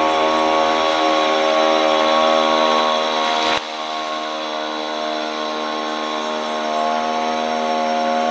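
Small boat engine running steadily at an even pitch. About three and a half seconds in the sound drops suddenly, then carries on a little quieter.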